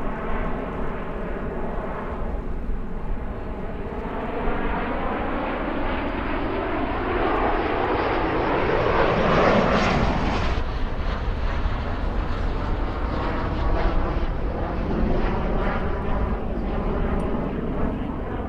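CT-114 Tutor jets, each with a single turbojet, flying past in an airshow display; the jet noise builds to its loudest about halfway through as they pass, then eases off.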